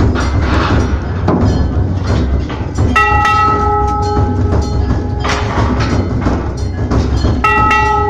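Large hanging temple bell struck twice, about four and a half seconds apart. Each strike rings with several clear tones that fade over a second or two, over a steady rapid clatter of percussive knocks.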